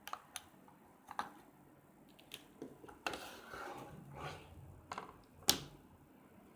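Light taps, clicks and short rubbing noises of small hard objects being handled, with one sharper click about five and a half seconds in.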